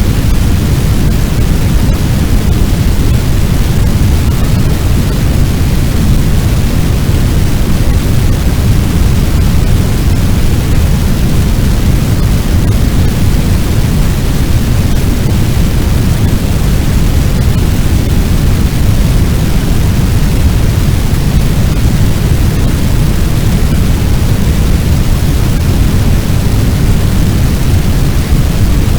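Fire sound effect of a large blaze: a loud, steady, low rumbling noise with no distinct crackles or pops.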